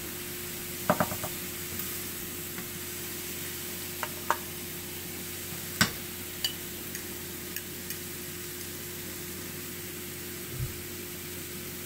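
Cauliflower fried rice sizzling faintly in a hot skillet while a wooden spoon scoops it into a glass bowl, with a few light clicks and taps of spoon against pan and bowl, the sharpest about six seconds in.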